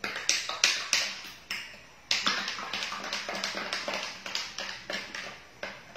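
Sharp taps of a kitchen utensil on a hard surface at the counter: a few knocks, then from about two seconds in a quick run at about four or five a second.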